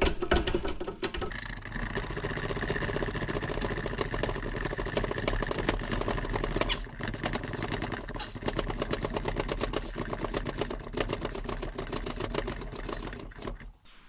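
Manual hydraulic hand pump on a budget hose crimper being worked through a crimp, played back sped up about five times, so the pump strokes and clicks run together into a fast, even mechanical clatter.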